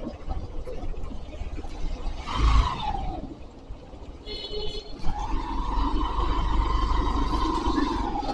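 Road traffic: vehicle engines running under a steady low rumble. One vehicle passes with a falling pitch about two and a half seconds in, and a short high horn beep comes a little after four seconds. A steady whine holds from about five seconds in.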